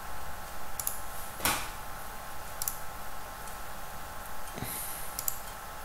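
A computer mouse clicking about five times at uneven intervals, the loudest about one and a half seconds in, over a steady background hum.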